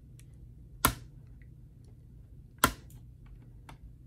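Two sharp plastic clicks about two seconds apart, with a few faint ticks between, as a plastic opening tool pries at the laptop keyboard's ribbon cable connector latch; the latch is stiff and hard to lift.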